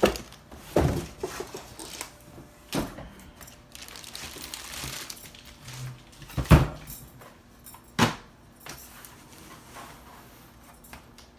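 Items and packaging being handled during an unboxing: five separate knocks and clacks, the loudest about six and a half seconds in, with a soft rustle of packaging between them.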